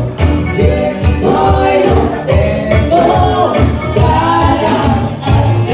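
Dance music with a singing voice over a steady bass beat.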